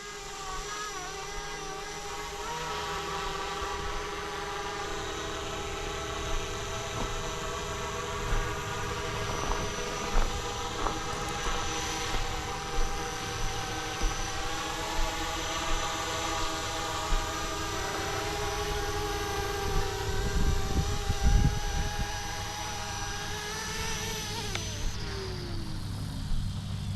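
Flishrc Little Bird 450 RC model helicopter running with a steady whine from its motor and rotors, which drops in pitch near the end as it spools down.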